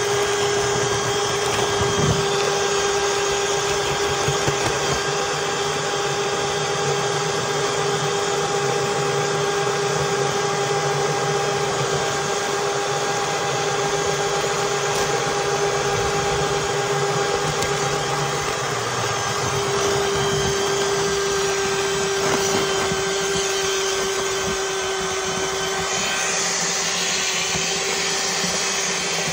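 Milwaukee cordless drill mixer running steadily with a paddle in a bucket, mixing a batch of self-leveling underlayment as the powder is poured into the water: a constant motor hum.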